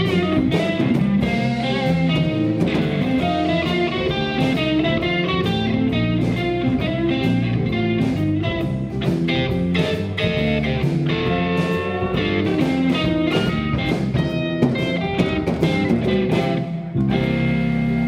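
Live blues-rock band playing an instrumental passage: electric guitar lead lines over bass and drums. About a second before the end, the band shifts to a held chord with no drum hits, closing the song.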